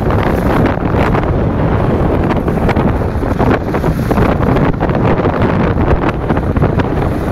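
Heavy wind buffeting on the microphone of a camera carried while skiing downhill, mixed with the hiss and scrape of skis running over snow.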